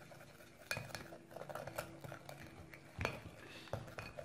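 Yellow plastic spoon stirring and scraping a gritty paste of fine sugar and baking soda in a small glass dish, with light clicks and taps against the glass at uneven intervals.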